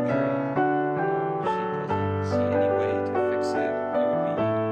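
Background piano music: a slow run of notes, a new one about every half second, over held low notes.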